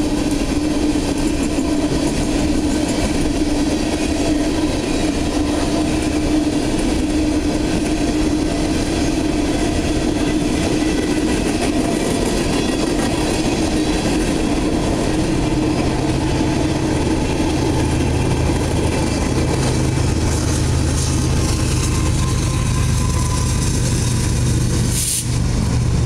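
Empty coal hopper cars rolling steadily past a grade crossing, with continuous steel-wheel and rail noise. A steady low hum joins about halfway through.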